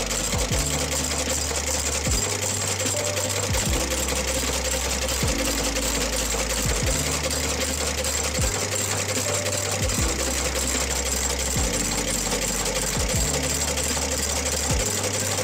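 Outsole stitching machine running steadily, lockstitching a leather outsole to a shoe's welt.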